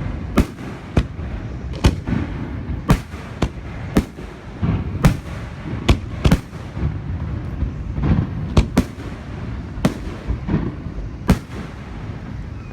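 Aerial fireworks shells bursting in quick succession: a dozen or more sharp booms and cracks, irregularly spaced, over a continuous low rumble of echoes and further bursts.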